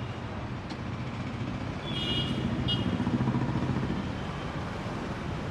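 Road traffic, with a vehicle engine rumbling past that swells about two seconds in and eases off by four. A few short, high beeps come around the two-second mark.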